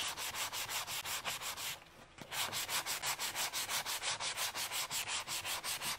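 Sanding sponge rubbed briskly back and forth over the bare wooden barrel of a rolling pin by hand, in quick even strokes several a second, with a brief pause about two seconds in.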